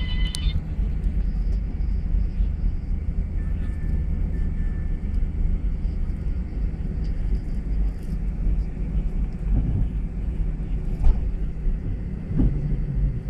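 Steady low rumble of an Airbus A320 airliner taxiing, heard from inside the cabin: the jet engines at idle and the gear rolling over the taxiway.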